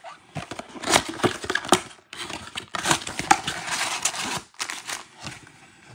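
A cardboard Prizm basketball blaster box being opened by hand and its foil-wrapped card packs pulled out: irregular crinkling, rustling and clicking, with short pauses about two seconds in and again after four and a half.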